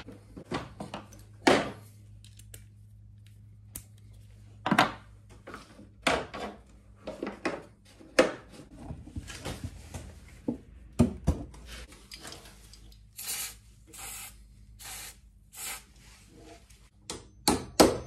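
Scattered clicks and knocks of metal tools and brake parts being handled during rear brake pad work on a motorcycle, over a faint steady hum. A few short noisy bursts come about two-thirds of the way in, and a couple of louder knocks near the end.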